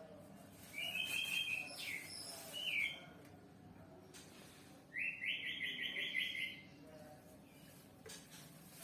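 High-pitched chirping squeaks from a small animal in rapid trills: a first run about a second in, two short rising chirps, then a longer trill from about five seconds in.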